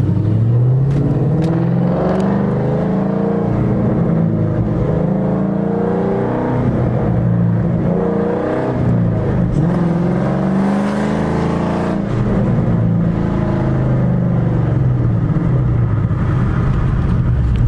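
The 2012 Shelby GT500's supercharged 5.4-litre V8 runs through newly fitted long tube headers and an off-road X-pipe. The note rises and falls again and again as the car accelerates and eases off, with no exhaust pops.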